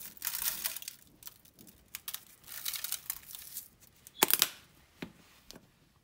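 Dry herb seasoning shaken from a plastic shaker over raw Cornish hens in a foil pan, in short rattling bursts, with a louder crinkle of the foil pan about four seconds in.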